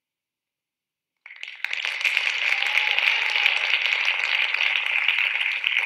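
Audience applause that starts abruptly about a second in and carries on as dense, steady clapping.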